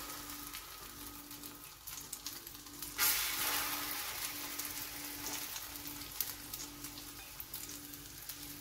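Egg-coated shami kebab patties shallow-frying in a little oil on a flat iron tawa, sizzling steadily. About three seconds in the sizzle jumps louder as another patty is laid on the hot griddle, then slowly eases.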